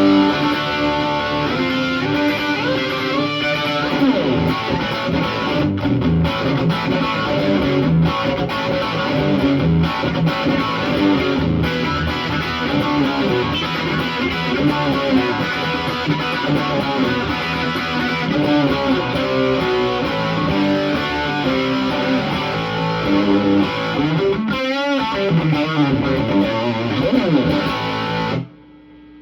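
Electric guitar (Gibson SG) played through a Marshall SC20C JCM800 20-watt tube combo, its preamp near full gain and boosted by a Metropoulos Supa-Boost pedal: crunchy overdriven riffs and chords with reverb. The playing stops near the end, leaving one low note ringing faintly.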